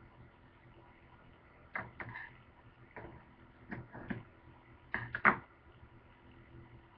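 A string of short knocks and taps on a plastic cutting board as bacon and smokies are handled on it, coming in uneven clusters, the loudest about five seconds in.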